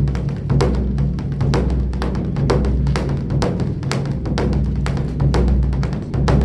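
A large drum beaten rapidly and steadily, about four strokes a second, over a deep ringing boom.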